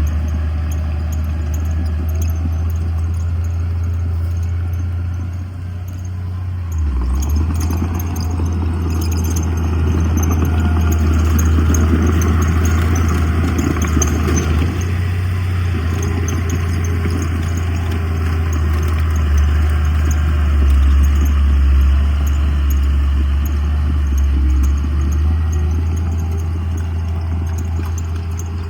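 Heavy diesel earthmoving machinery running continuously, with a deep steady engine hum. About a quarter of the way in, a noisier, louder stretch of mechanical clatter lasts several seconds, then the sound settles back to the steady engine.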